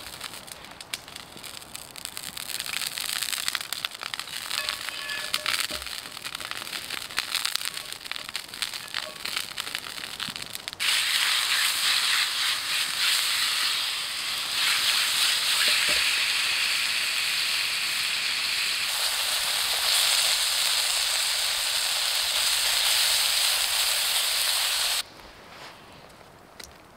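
Wood campfire crackling and popping while food cooks in a skillet over the flames. About eleven seconds in, a loud, steady sizzling hiss comes in, holds, and cuts off suddenly shortly before the end, leaving quieter crackling.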